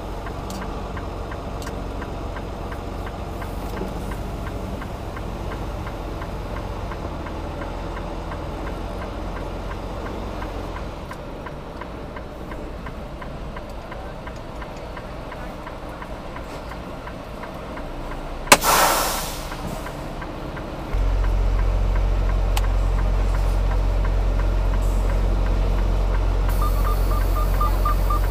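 Semi truck's diesel engine idling with a steady low rumble. Two-thirds of the way in comes one sharp burst of air that hisses away over about a second, and soon after the engine rumble steps up louder and stays there.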